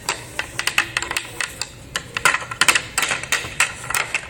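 Quick, irregular clatter of small cups and dishes being handled and knocked together, many sharp clicks and taps a second.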